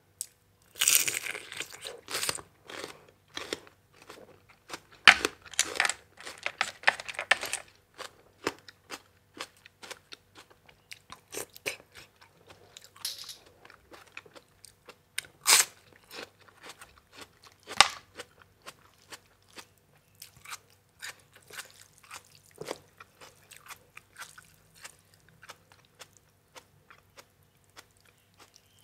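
A person chewing and crunching food close to the microphone: a som tam meal of blood cockles with crisp raw vegetables. There is dense crunching over the first several seconds, then scattered smacks and clicks.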